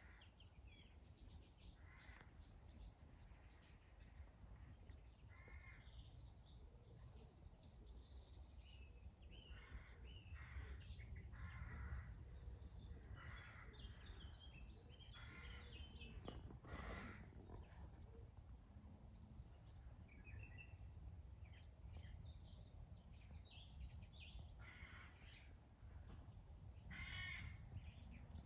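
Faint outdoor ambience: birds calling over and over in short calls, several of them crow-like, over a low steady rumble.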